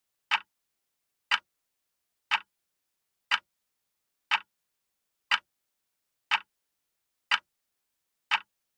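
Countdown timer sound effect: a short, sharp tick once a second, nine times, with silence between the ticks.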